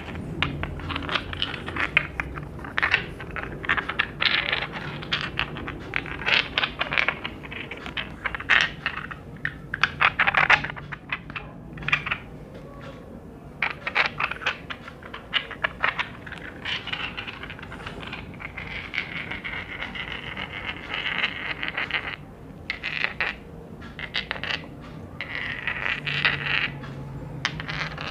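ASMR tapping and scratching on hard objects: rapid, irregular clicks and taps in dense runs, mixed with scraping, with brief pauses around 11 and 23 seconds in.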